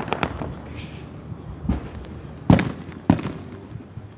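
Fireworks going off: a flurry of crackling pops at the start, then three separate booming bursts over about a second and a half, the middle one the loudest.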